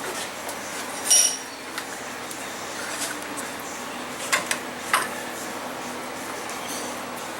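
A few separate metallic clinks and knocks from tools and metal parts being handled on a workbench; the first, about a second in, rings briefly. A steady hiss of room noise runs underneath.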